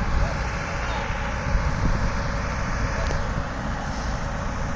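Diesel engines of a Hyundai R140LC-7 crawler excavator, loaded on a low-bed truck trailer, and a backhoe loader beside it running together in a steady mechanical drone. Gusty low rumble from wind on the microphone runs through it.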